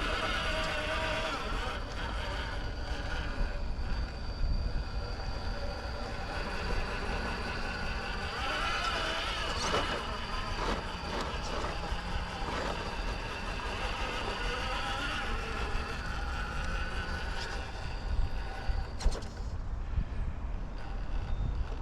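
Electric motor and drivetrain of a radio-controlled rock crawler whining as it crawls, the whine rising and falling in pitch as the throttle changes, over a low rumble.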